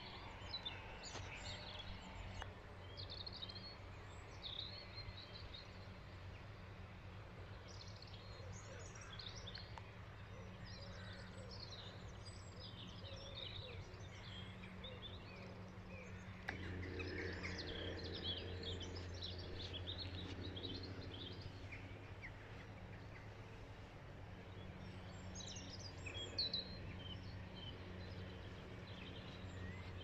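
Small birds chirping and singing on and off, over a steady low hum that gets louder about halfway through.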